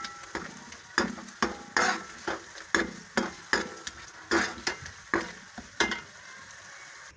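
Metal ladle stirring and scraping tomato halves through a sizzling spice masala in a pan, about two strokes a second over steady frying sizzle. The stirring stops about six seconds in, leaving the sizzle alone.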